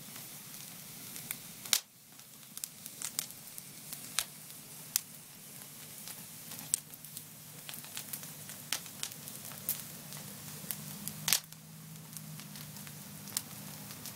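Wood fire of burning logs crackling: irregular sharp pops over a steady hiss, with two louder pops, one about two seconds in and one a little after eleven seconds.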